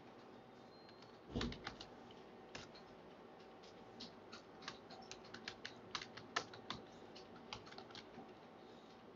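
Faint typing on a computer keyboard: irregular key clicks, with a heavier thump about a second and a half in.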